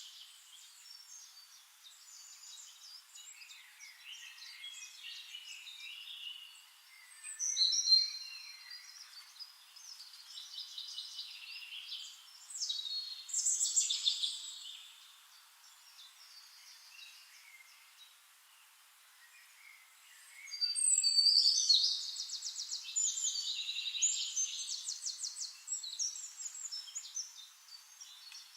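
Wild songbirds singing in separate chirping phrases, with a longer stretch of rapid trills in the last third.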